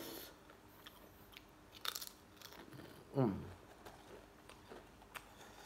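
Faint chewing of crisp Mr. Potato Ghost Pepper potato chips, with scattered short, sharp crunches. About three seconds in there is a brief falling groan from the eater.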